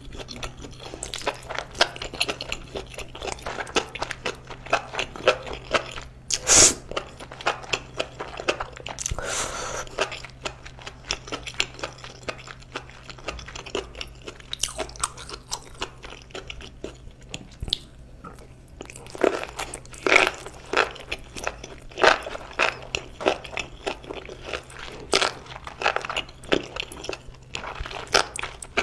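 Close-miked chewing of enoki mushrooms in thick spicy red sauce: wet, crunchy bites with many quick, irregular clicks, louder bites about six and a half and nine and a half seconds in. A steady low hum runs underneath.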